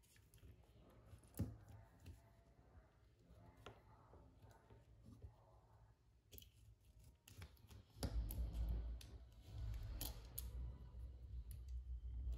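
Light clicks and snaps of small plastic Rubik's cube pieces being picked up and pressed together by hand. About eight seconds in, a deep low rumble starts and keeps going: a movie's soundtrack playing very loud in the room below, loud enough to shake the floor.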